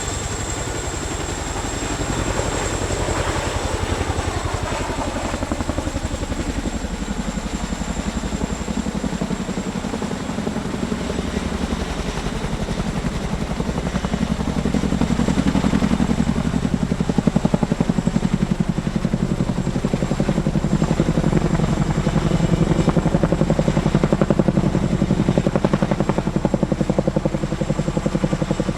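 CH-47 Chinook tandem-rotor helicopter running, its rotors making a rapid beating thrum under a steady high whine. It grows louder about halfway through.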